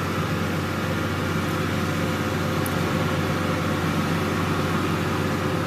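Steady machine hum with an even, fan-like rushing noise that holds level throughout.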